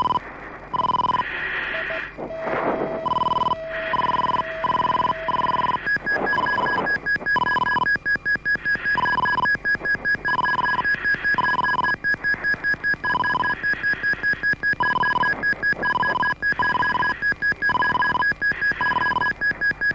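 Mirage 2000 cockpit warning tones during a wheels-up landing: a short electronic beep repeating about once a second, joined about six seconds in by a continuous, rapidly pulsing higher-pitched alarm tone.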